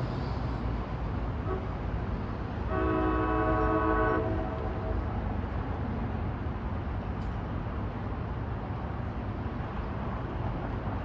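Approaching diesel locomotive's air horn sounding one long blast about three seconds in, a chord of several steady notes lasting about a second and a half, part of its warning for the grade crossing. A steady low rumble runs underneath.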